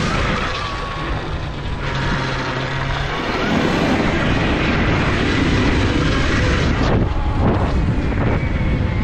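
Electric dirt bike riding along a gravel forest track: wind rushing over the microphone and tyre noise, with a faint steady motor whine. The rush grows louder about three seconds in.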